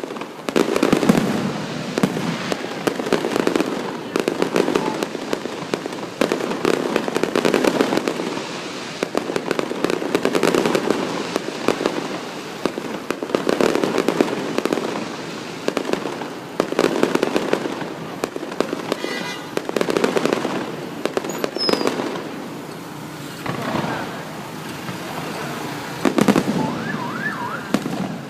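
Aerial fireworks going off in a rapid series of bursts, each a cluster of booms and crackling every second or two, with a couple of faint rising whistles near the end.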